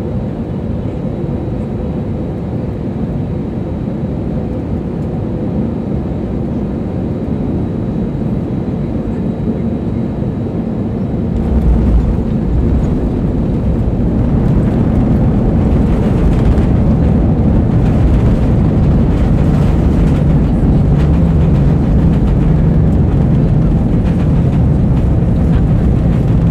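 Cabin noise of an Airbus A320 landing: steady engine and airflow noise on final approach, then a sudden low thump of touchdown about twelve seconds in, followed by a louder, rougher rumble of the wheels and engines as the airliner rolls down the runway.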